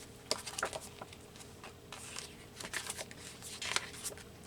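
Paper pages being handled and flipped: irregular rustles and light taps, over a faint steady hum.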